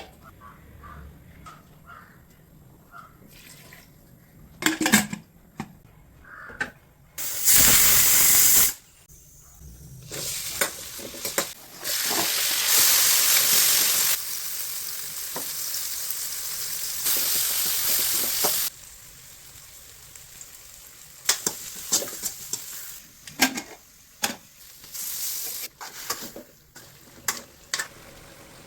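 Cooking sounds: utensils clinking and knocking against a pan, with stretches of loud sizzling, a short burst first and then a longer one lasting several seconds midway.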